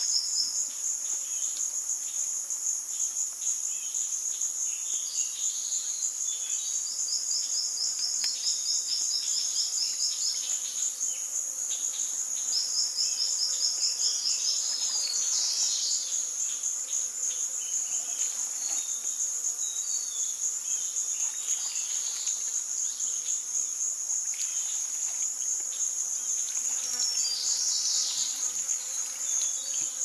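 Chorus of rainforest insects keeping up a steady, high shrill drone. A second insect's rapid pulsing trill comes in a few times in the first half.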